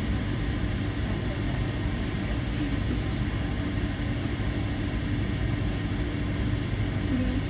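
Steady rumble of a jet airliner's engines heard at a distance, holding an even level with a faint steady hum.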